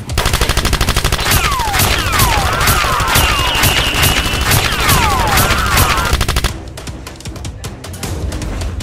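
Rapid machine-gun fire sound effects dubbed over a Nerf drum blaster being fired, a fast steady burst with falling and swooping whistles over it. The firing stops about six and a half seconds in, leaving background music.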